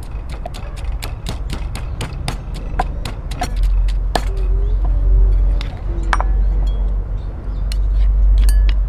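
Knife chopping on a cutting board: a quick, irregular run of sharp knocks, several a second, over a steady low rumble that grows louder about halfway through.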